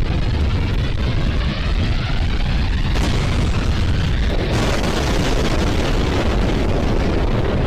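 Loud, steady rushing roar of floodwater with a heavy low rumble; the sound turns brighter and hissier about three seconds in and again at about four and a half seconds.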